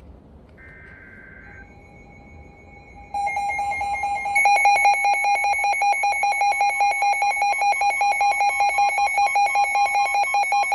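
NOAA Weather Radio alert signal: a short burst of buzzing data tones, then steady electronic tones, then from about three seconds in a loud, rapidly pulsing alarm beep that announces an incoming warning.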